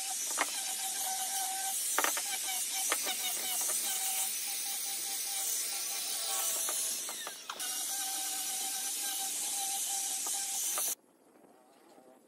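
A motor-driven workshop tool running steadily with a hissing whir and a few sharp knocks, cutting off abruptly about eleven seconds in.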